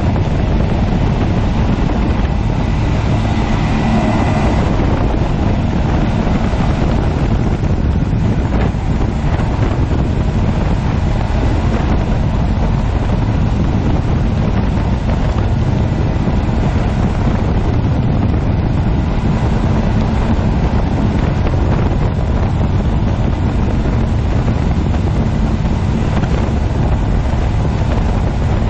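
Five Suzuki 250 hp V6 four-stroke outboard motors running together at speed, a steady loud drone mixed with the rush of the wake. Heavy wind buffets the microphone throughout.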